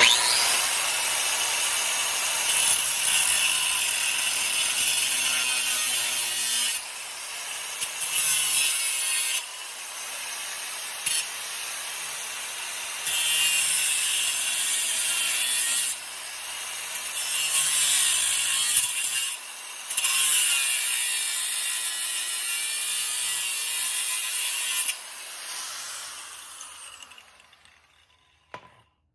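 Angle grinder with a cutoff wheel grinding through steel bolt tips, a loud high-pitched grinding that swells and eases several times as the wheel bites and lifts off. Near the end the grinder is switched off and the wheel spins down with a falling whine.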